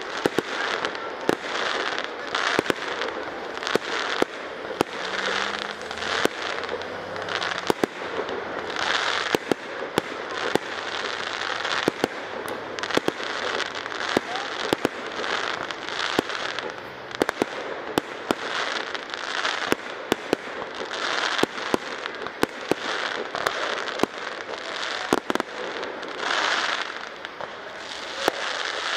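Aerial fireworks display: a steady run of shell bursts, sharp bangs several times a second, over a hissing, crackling wash that swells and fades every few seconds.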